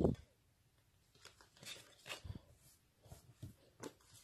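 Glossy photocards being handled and laid down on a table: scattered light clicks and taps of card on card and card on tabletop, with one louder knock at the very start.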